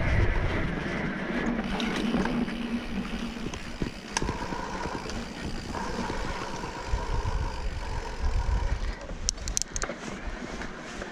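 Electric mountain bike being ridden along a rough trail: a steady rush of wind and tyre noise, with a faint steady whine for a few seconds in the middle and a few sharp clicks near the end.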